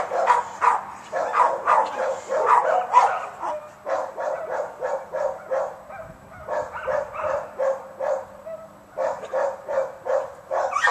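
A dog barking in a rapid, steady series of about three barks a second, with a couple of brief pauses.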